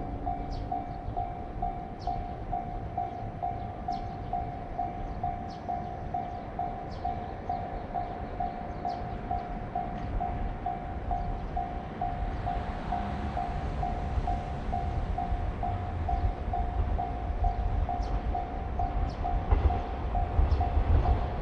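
Japanese level crossing warning bell ringing its even, repeating kan-kan tone. A train's low rumble approaches from about halfway through and grows louder near the end.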